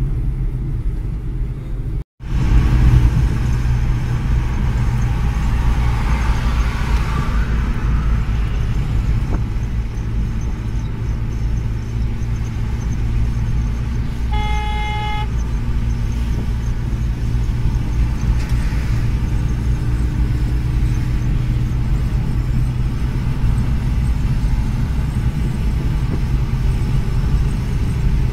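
Steady road and engine rumble inside a moving car's cabin, with one short vehicle horn toot about halfway through.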